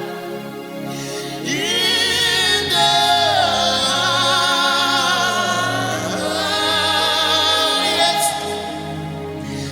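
Gospel worship singing: a voice holding long, wavering notes and gliding through runs without clear words, over sustained backing chords.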